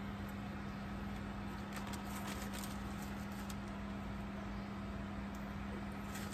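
A steady low electrical hum, with a faint higher whine above it, from an induction cooktop running off a portable power station. A few light clicks and rustles come as a plastic bag of shredded carrots and a glass pan lid are handled.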